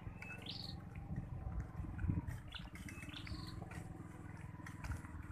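Small motorcycle engine running at low revs, a rapid, even low rumble. A short high rising chirp sounds twice, about three seconds apart.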